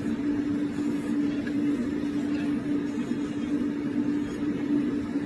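Electric nail drill grinding a dog's claws, its small motor running with a steady hum.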